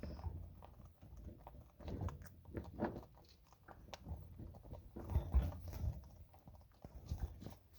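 An animal chewing a treat: irregular crunching and smacking at an uneven pace, with a few short pauses.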